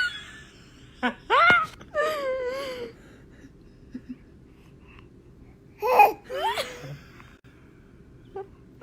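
A baby's high-pitched vocal sounds: short squeals and laugh-like babbling in three separate spells with pauses between.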